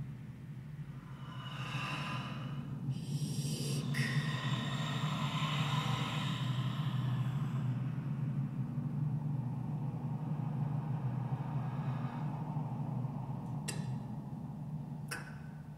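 Experimental music-theatre soundscape: a steady low electronic drone under amplified breath-like hissing and sighing noises that swell for several seconds and then fade. Two short sharp clicks come near the end.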